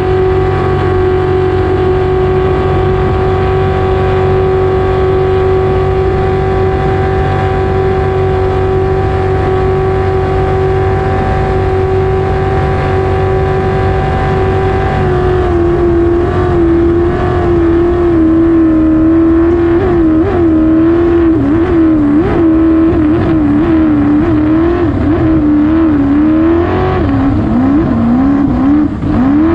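Racing jet boat's engine running hard, heard from the cockpit: a steady high pitch for about the first half, then the pitch wavers up and down quickly as the boat runs into rough whitewater.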